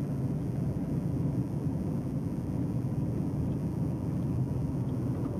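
Steady road and engine noise of a moving car heard from inside the cabin, a low, even rumble.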